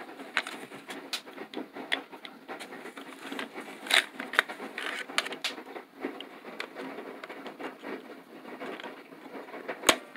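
Plastic parts of a small carousel ornament being handled: irregular clicks, scratches and scrapes as its canopy top is fitted onto the base, with sharper knocks about four seconds in and again near the end.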